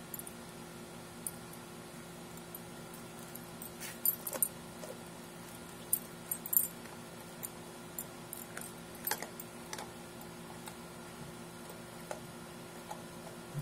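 Mastiff puppy chewing a frozen raw tilapia: irregular crunches and clicks of teeth on the frozen fish, in clusters, with the metal tags on its collar jingling as its head moves.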